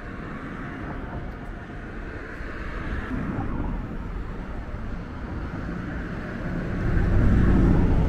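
Steady rumble of road traffic, with a heavier vehicle passing close and loudest near the end.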